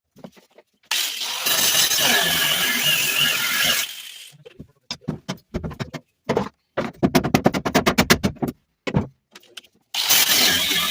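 Power tools cutting and grinding out a rusty sheet-steel car floor pan: a harsh grinding hiss for about three seconds, a stretch of short bursts and a rapid run of sharp metallic strikes, then grinding again near the end. The sounds start and stop abruptly.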